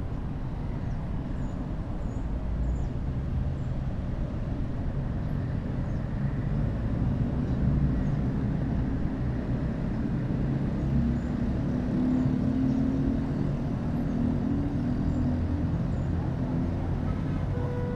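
Road traffic in a city square: a steady low rumble of passing motor vehicles, with an engine drone that swells around the middle and eases off again.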